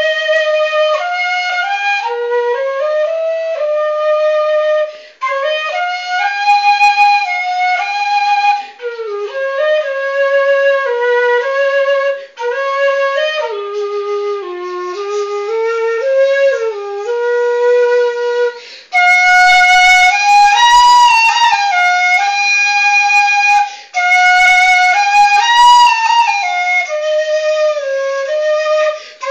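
Low-F Vietnamese bamboo transverse flute (sáo trúc), about 80 cm long, playing a solo melody in phrases with short breaks for breath. From about nineteen seconds in, the melody moves higher and a little louder.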